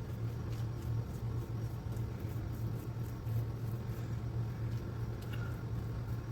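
Steady low mechanical hum, with a few faint soft clicks over it.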